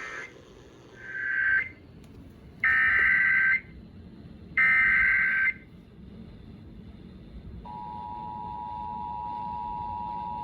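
Emergency Alert System header tones: three harsh, buzzy data bursts about a second each, the first swelling in. About eight seconds in they are followed by the steady, dissonant two-tone EAS attention signal, announcing a new flash flood warning.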